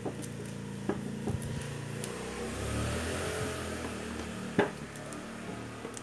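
A few light clicks and taps of small metal parts being handled, the loudest about four and a half seconds in, over a steady low hum that swells and fades in the middle.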